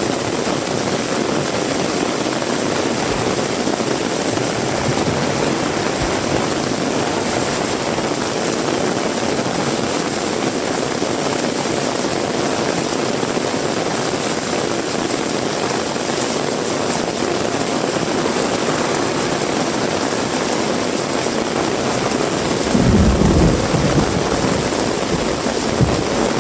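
Heavy rain falling steadily in an even hiss. A low rumble swells for about two seconds near the end.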